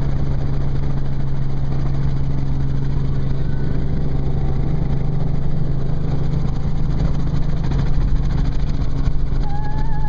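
Helicopter engine and rotor running steadily in flight, heard from inside the cabin as a constant low drone. A brief, faint wavering high tone sounds near the end.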